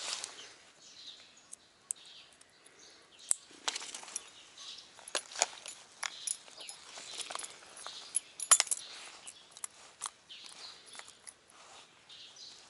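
Fishing tackle handled up close: irregular sharp clicks and light metallic clinks from spinnerbaits and a clear plastic lure box, the loudest cluster about two-thirds of the way in.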